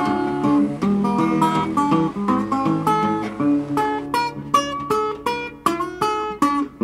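Background music: an instrumental break in an acoustic blues song, with picked and strummed guitar and a steady beat.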